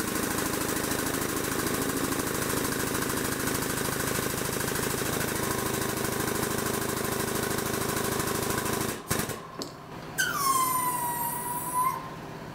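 The air-assisted bottle jack of a 20-ton shop press runs steadily with a fast, even pulsing, driving a press brake's hemming dies down onto 16-gauge sheet steel, and stops abruptly about nine seconds in. About a second later a short squeal falls in pitch over about two seconds.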